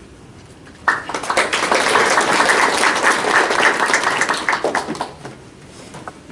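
Audience applauding. The clapping starts suddenly about a second in and dies away about four seconds later.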